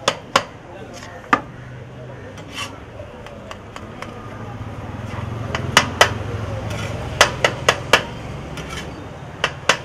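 Metal spatula clinking and scraping on a large flat griddle as a heap of noodles is tossed and stir-fried. The clinks are sharp and irregular, a few early on and more packed together in the second half, over a steady low hum.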